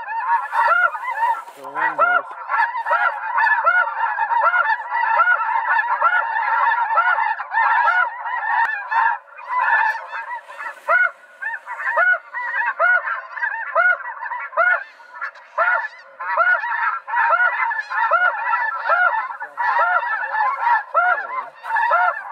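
Large flock of snow geese calling overhead: a dense, unbroken chorus of many overlapping honks.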